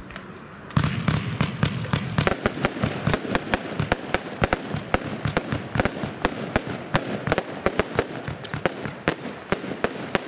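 Lesli 'Big Blue Box' compound firework (Verbundfeuerwerk) firing a rapid series of shots that starts about a second in: sharp cracks several a second over a constant crackling hiss.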